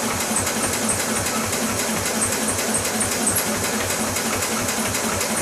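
Wisconsin TRA10D single-cylinder engine of a Bolens 1050 garden tractor running steadily with an even, rapid beat.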